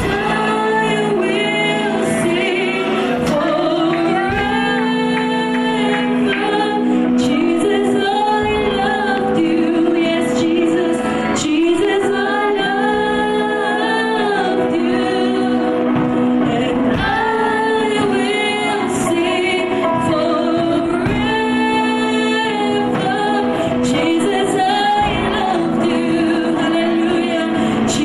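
A woman singing a gospel worship song into a microphone, with long held notes, over a steady sustained musical backing.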